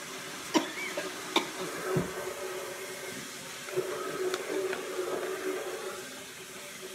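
A Shopkins toy packet being handled and torn open by hand: a few sharp crackles in the first two seconds, then a stretch of crinkling and rustling from about four seconds in.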